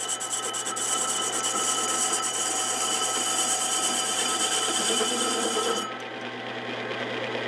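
Lathe tool scraping across a spinning rusty cast-iron brake rotor, a gritty rasping hiss over the steady whine of a small lathe-mill-drill running. The cut breaks off about six seconds in, leaving the machine running. The machinist takes the rough cut and the sparks for hard spots in the rotor.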